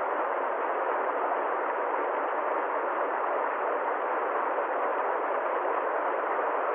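Steady, unchanging rushing noise, even and without any rhythm, tones or clicks.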